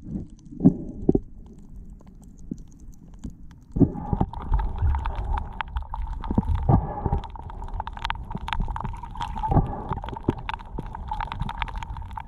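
Muffled underwater sound picked up by a submerged camera: low rumbling water movement with scattered knocks and clicks. About four seconds in, it gets louder, and a steady whine joins that lasts to the end.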